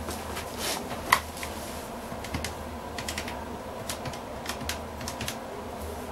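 Irregular key clicks, like typing on a keyboard, with one louder click about a second in, over a steady low hum.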